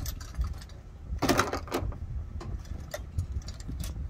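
Metal hand tools clinking and rattling as they are rummaged through in a tool bag, with a louder cluster of clinks about a second in, over a low steady rumble.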